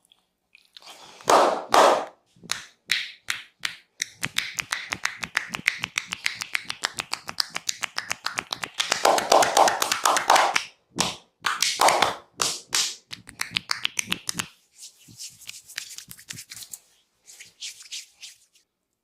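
Rapid percussive massage strokes: hands tapping and slapping on the body, many strikes a second. There are louder clusters about a second in and again around nine to twelve seconds in, and the strokes thin to a few scattered taps near the end.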